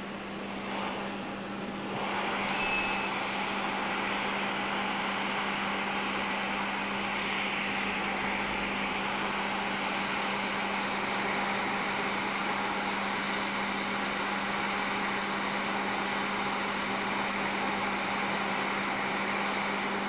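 Hot air rework station blowing steadily, its airflow getting louder about two seconds in, with a constant low hum. It is heating a shorted MOSFET on a graphics card to desolder it.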